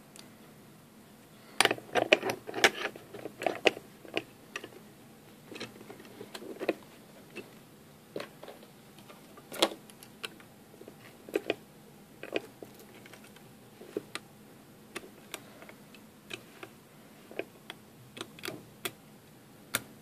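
IFAM E-50 brass padlock being clamped in a vise and worked with a tension wrench and pick: irregular sharp metallic clicks and taps, a dense cluster about two seconds in, then single clicks every second or so.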